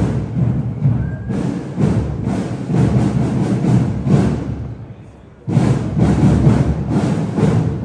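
Parade drums beating a steady marching rhythm. The drumming fades out about halfway through and comes back abruptly about a second later.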